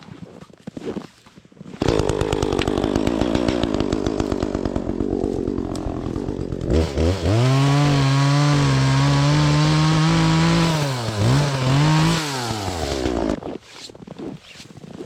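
Two-stroke chainsaw cutting through wood, the engine note low and labouring under load. About halfway through it rises sharply to a high steady full-throttle whine, dips twice as the throttle is eased, and stops shortly before the end.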